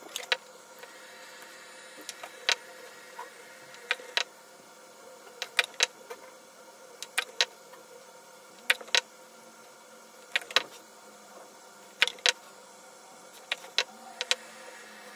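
Sharp clicks and clacks, mostly in quick pairs about every second and a half, from cylindrical LiFePO4 32700 cells being handled and set down and from tester probe tips being pressed onto their metal ends. A faint steady hum runs underneath.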